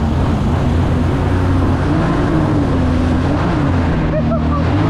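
Small boat's motor running steadily under way, its pitch wavering a little, over the rush of the boat's wake water.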